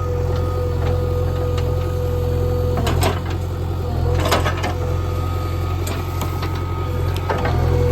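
JCB 3DX backhoe loader's diesel engine running steadily with a steady whine over it, and a series of sharp knocks and clunks, the loudest about three and four seconds in.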